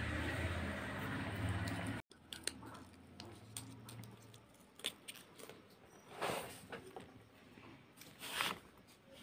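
A steady low hum that cuts off abruptly about two seconds in, followed by fresh green pea pods being split open by hand: scattered snaps, crackles and rustling of the pods, with the strongest cracks about six and eight seconds in.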